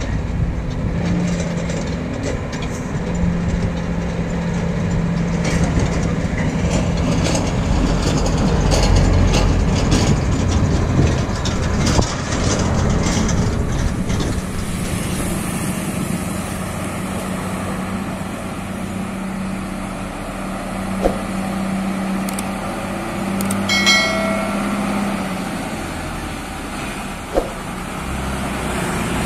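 Old Mercedes-Benz diesel truck engines running as the trucks manoeuvre and move along the road, a steady diesel hum throughout. About two-thirds of the way through there is a short horn toot.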